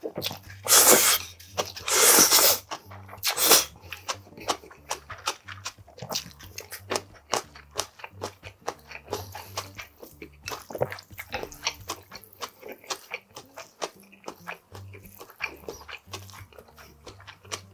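Mouth sounds of eating cold hiyashi chuka noodles, close to the microphone: three loud slurps in the first few seconds, then continuous chewing with many short crunchy clicks.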